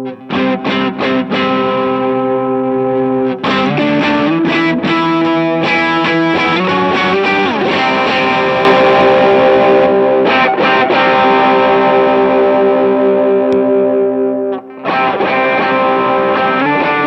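Electric guitar played through a pedalboard with distortion. It opens with short, choppy chord stabs, then moves to sustained ringing chords with a slide in pitch, and there is a brief break about fifteen seconds in before a new chord.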